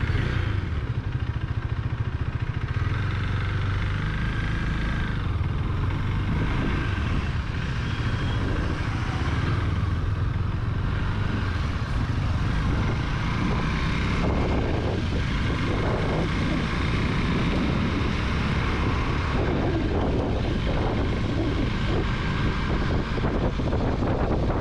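KTM Duke 390's single-cylinder engine running as the motorcycle rides on and picks up speed.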